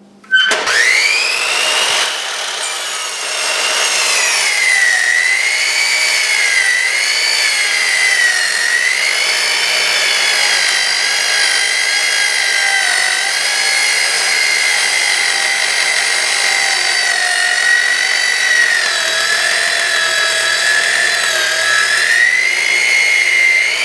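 Electric miter saw starting up about half a second in and running with a steady, high motor whine as its blade is pulled down through a roll of foil radiant barrier. The pitch wavers slightly as the blade loads in the cut.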